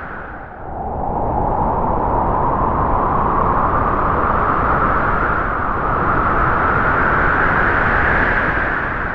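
Howling wind sound effect: a continuous whistling gust that drops in pitch and loudness about half a second in, then swells and slowly rises in pitch.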